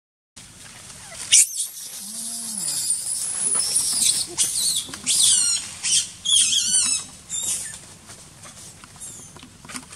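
Macaques screaming in a chase: a run of shrill, high-pitched squeals, many of them falling in pitch, starting about a second and a half in and dying down near the end.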